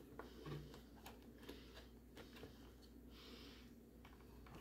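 Near silence, with a few faint small clicks and taps of fingers working tiny plastic parts on a model train locomotive.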